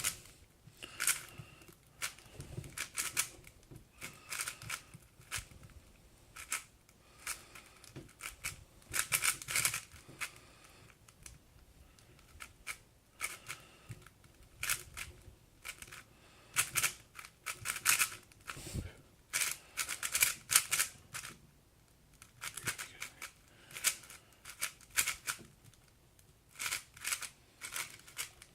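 MoYu Aosu GTS M magnetic 4x4 speedcube being turned fast: runs of plastic clicking and clacking layer turns, broken by short pauses.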